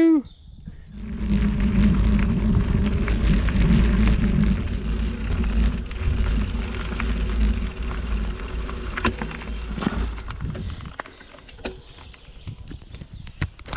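Wind rumbling on a handlebar-mounted action camera's microphone while a 2018 Specialized Chisel bicycle rolls along a dirt and grass track, with tyre noise and scattered small clicks and rattles. The rumble eases about ten seconds in, leaving quieter rolling noise and clicks.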